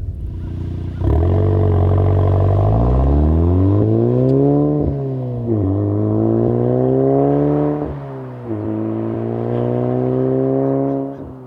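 VW Golf R's 2.0-litre turbocharged four-cylinder engine through an AWE SwitchPath exhaust, accelerating hard with the revs climbing. The pitch drops sharply twice at the upshifts, about halfway through and again a few seconds later, then the engine lets off near the end.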